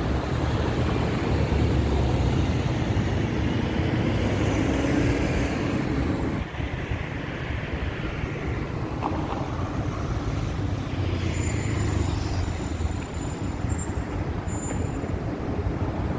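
Road traffic: cars and trucks passing on a busy city road in a steady rumble.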